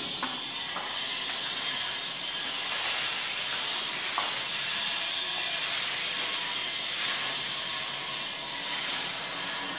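Paint roller rolling thinned paint onto a wall, a steady wet hiss that swells and eases with the strokes.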